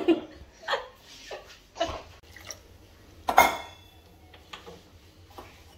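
Steel kitchen utensils clinking and knocking on a granite counter: a series of short clinks, the loudest about three and a half seconds in with a brief metallic ring.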